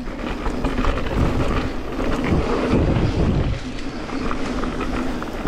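Wind buffeting the camera microphone over the rumble of a Mondraker FOXY Carbon full-suspension mountain bike's tyres rolling fast down a dirt trail, with faint rattling clicks from the bike.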